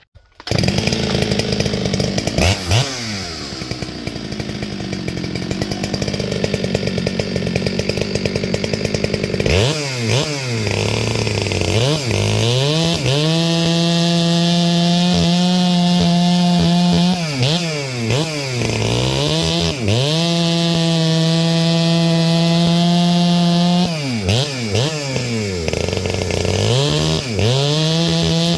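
Farmertec G395XP chainsaw's two-stroke engine running: uneven low running for the first several seconds, then from about ten seconds in it is revved up repeatedly to a high steady full-throttle pitch and held there, dropping back down between runs.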